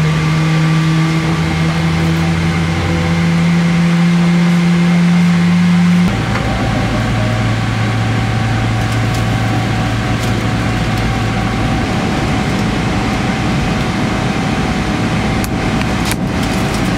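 Steady Boeing 777-300ER cabin noise: a loud low hum from the engines and air conditioning, which changes abruptly about six seconds in to a broader rushing noise with a lower hum. Near the end come a few light plastic clicks as the armrest's fold-out cocktail table is handled.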